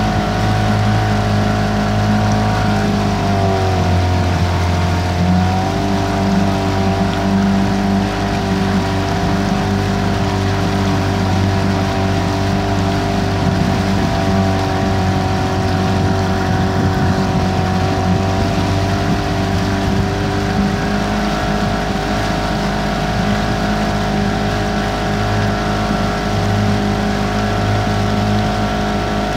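Outboard motor of a small boat running at a steady cruising pace, its pitch dipping briefly a few seconds in as the throttle eases and then coming back up and holding steady.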